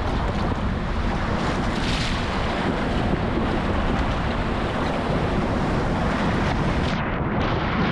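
Whitewater rapids rushing and breaking around an inflatable kayak, a steady loud roar mixed with wind on the microphone. The sound turns duller near the end.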